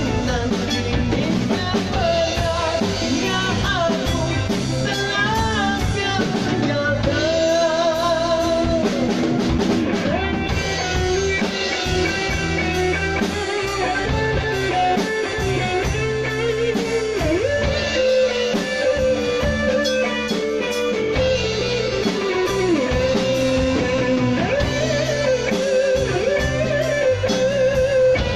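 Live band playing a reggae arrangement: electric guitar, bass guitar, drum kit and Korg keyboard, with a wavering lead melody on top.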